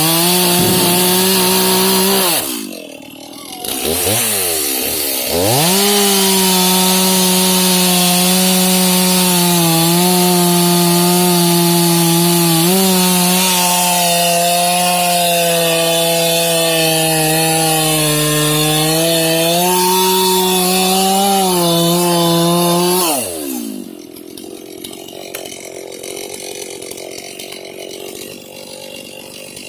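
Stihl MS 391 two-stroke chainsaw with a 25-inch bar cutting pine blocks at full throttle. It eases off briefly a few seconds in, revs back up and cuts steadily with its pitch sagging a little under load, then drops back to a quiet idle near the end.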